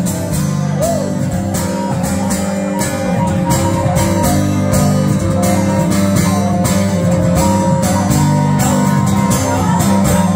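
Live acoustic guitar strummed in a steady rhythm, with a wooden flute playing a held melody over it.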